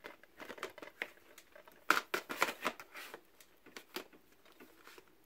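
Plastic DVD cases clicking and scraping against each other as one case is slid back into a tightly packed shelf rack and another is pulled out. An irregular run of clicks and rubs, loudest about two seconds in.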